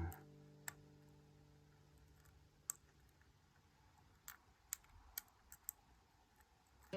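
Faint, scattered clicks of a lock pick and tension wrench working the pins of a pin-tumbler challenge lock, about seven soft ticks spread over several seconds.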